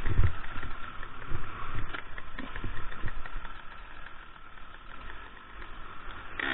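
Two-stroke enduro dirt bike engine running at low revs on a rough trail, its note rising and falling, with irregular low thumps and knocks.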